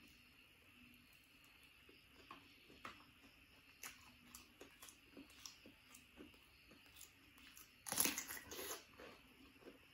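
Faint mouth clicks and chewing while eating with the fingers, then a loud crunchy bite and chew into a raw cucumber about eight seconds in.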